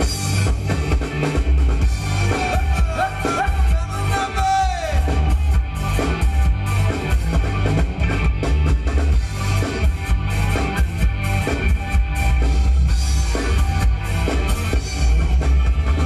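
Thai ramwong dance music from a live band over loudspeakers: a steady drum-kit and bass beat under a melodic lead line that slides in pitch a few seconds in.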